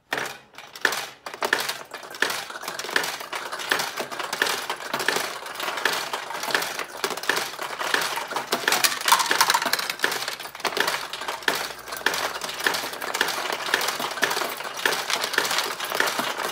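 Vintage mechanical pachinko machine in play: small steel balls being fired and clattering down through the pins in a continuous rapid rattle of clicks and pings. A few separate clicks come first, and then the clatter runs on steadily.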